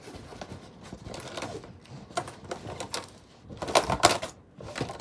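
Handling noise close to the microphone: small objects clattering and rustling as things are rummaged through, with a cluster of loud knocks about four seconds in.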